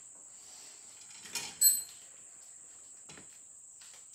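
A single sharp metallic clink that rings briefly, from metal striking metal at the machine, about one and a half seconds in, just after a short rustle. A faint knock follows near the end, and a steady high-pitched whine runs underneath throughout.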